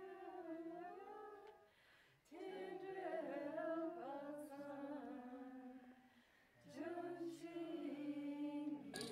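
Tibetan Buddhist liturgical chanting by a single voice: long held, slowly wavering notes in three phrases, with short breaks between them.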